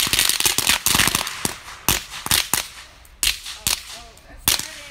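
Bonfire crackling with sharp, loud cracks and pops, crowded together in the first second and then coming singly every half second or so.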